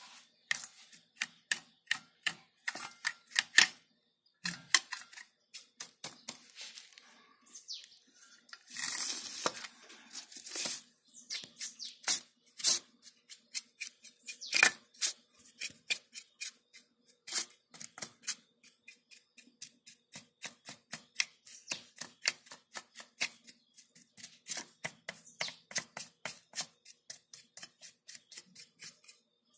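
A stiff brush scrubbing caked dust off a computer power supply's circuit board and cooling fan, in quick repeated scratching strokes, several a second, with one longer scrub about nine seconds in.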